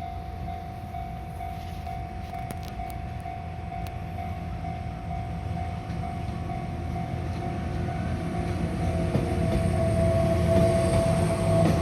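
Level-crossing warning bell ringing at a steady pitch as a JR freight train approaches, its low rumble growing steadily louder toward the end.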